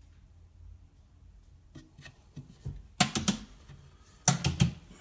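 Sharp clicks and knocks in two quick clusters of about four each, a second or so apart, from things being handled at a wooden cabinet, over a low hum.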